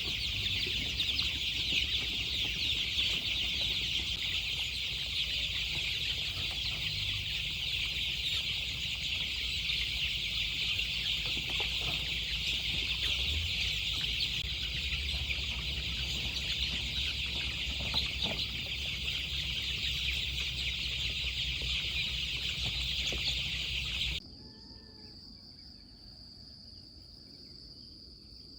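Chickens: a dense, continuous chorus of high peeping over a low rumble. About 24 seconds in it cuts off suddenly to a much quieter stretch with a thin steady high tone and a few faint clucks.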